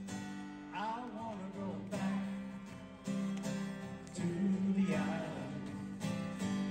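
Intro music: an acoustic guitar song with a voice singing over it.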